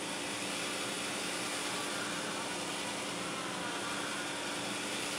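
Bicycle-chain kinetic sculpture running: a steady mechanical hum from its drive motors, with chains running over sprockets and pulleys.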